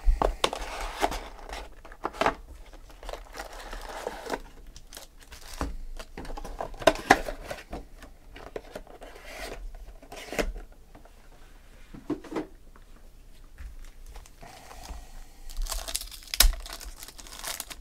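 Plastic and foil wrappers crinkling and tearing as a box of Panini Select football cards is opened and its card packs are ripped open: irregular rustling with a few sharp crackles.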